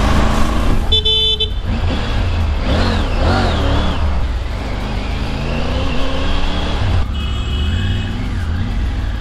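Road traffic heard from a moving motorcycle: a steady low rumble of engine and wind, with a vehicle horn beeping about a second in and again near the end, and a wavering pitched tone in between.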